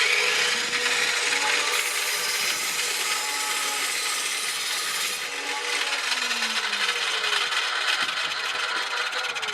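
Electric power saw cutting a wooden board to length, a steady saw noise through the wood.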